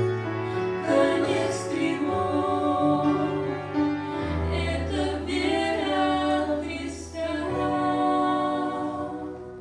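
Choral singing over sustained instrumental chords, a slow Christian song; the music fades down near the end.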